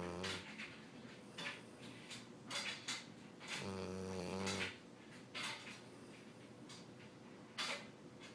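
Chocolate Labrador snoring in its sleep. A low-pitched snore about a second long comes about halfway through, and the end of another is heard at the start. Short breathy sounds come in between.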